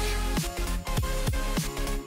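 Electronic background music with a steady kick drum beat, about two to three beats a second.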